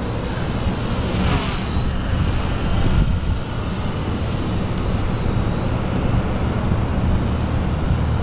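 Micro RC helicopter in flight: the V120d05's Extreme Spin 16,300 kV brushless motor and rotors give a high whine that wavers and glides in pitch as it manoeuvres, over a low rumble.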